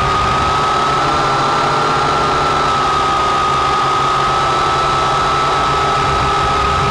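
Syma X8C quadcopter's four motors and propellers whining steadily in a hover, recorded from the camera mounted on the drone itself; the pitch holds nearly level with only a slight waver.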